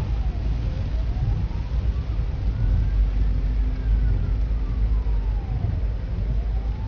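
Hong Kong ambulance siren in a slow wail, its pitch rising for about two and a half seconds, then falling, then rising again near the end. It is faint under a loud, steady low rumble of road and rain noise heard from inside a car.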